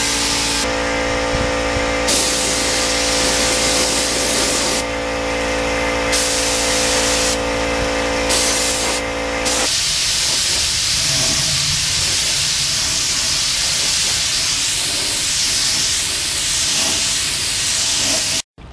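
Air spray gun hissing as it sprays the first coat of paint, the hiss starting and stopping with short trigger pulls over a steady motor hum. About ten seconds in the hum is gone and the gun hisses continuously.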